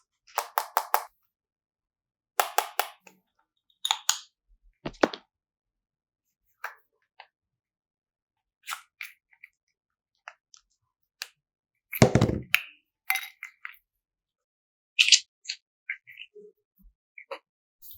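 Hands working sticky slime and clay: bursts of short crackling clicks and squishes, a few at a time, with the busiest burst about twelve seconds in.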